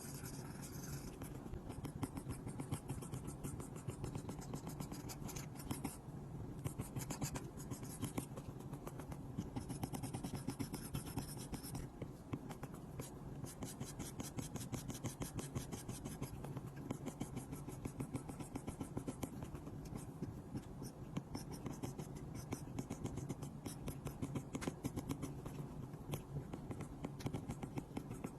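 Apple Pencil's plastic tip tapping and sliding on an iPad's glass screen in quick, irregular strokes and taps, as in drawing and colouring, over a low steady hum.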